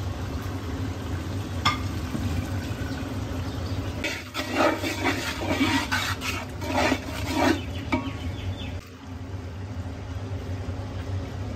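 Onion, tomato and spice masala frying in oil in a large metal pot, with a metal fork stirring and scraping through it in a run of uneven strokes from about four to seven and a half seconds in. A steady low hum lies underneath.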